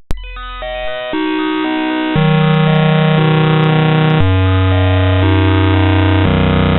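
Bytebeat-style sound effect generated by a GDI malware payload: harsh, buzzy synthesized tones with a lo-fi, dull top end, the pattern jumping abruptly to a new pitch and texture every one to two seconds after a brief cut near the start.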